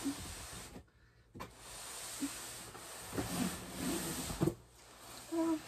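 Rustling and rubbing of household items being handled and moved about, with a few soft knocks. The sound drops out briefly about a second in.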